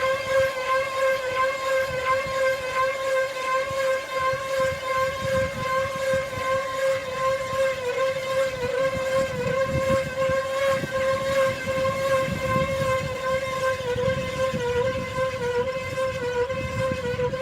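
A motor running at a steady speed, giving a continuous high whine with a slight waver in pitch over a rough low rumble.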